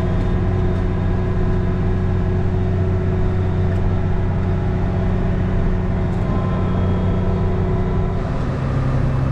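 Steady drone of a Case IH 2388 combine's engine and threshing machinery heard from inside the cab while harvesting corn. About eight seconds in, the pitch of the drone shifts.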